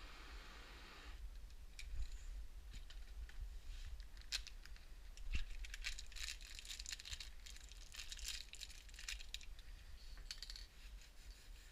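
Faint workshop handling noises: scattered light clicks, rattles and rustling as small parts or tools are handled, with a sharp click a little after four seconds and a knock about a second later. A faint hiss cuts off about a second in.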